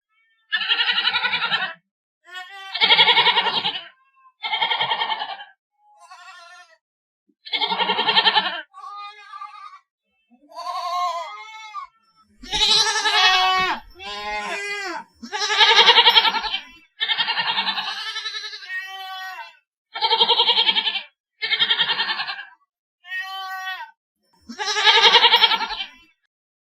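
Goats bleating: about fifteen separate calls, each a second or two long with short silences between, varying in pitch and loudness.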